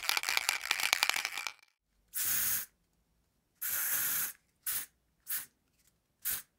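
Paper crumpling for about the first second and a half. Then aerosol spray-can hisses: two longer bursts of about half a second each, followed by three short puffs.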